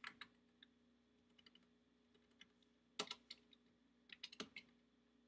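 Computer keyboard typing, quiet keystrokes in short bursts, the loudest cluster about three seconds in.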